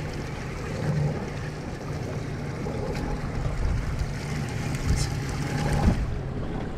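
Boat engine running steadily under wind noise on the microphone, with a few light knocks near the end.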